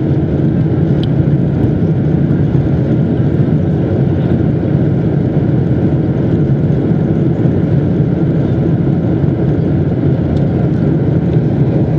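Steady low drone of a Boeing 747-200's jet engines and rushing air, heard from inside the cabin as the airliner climbs after takeoff.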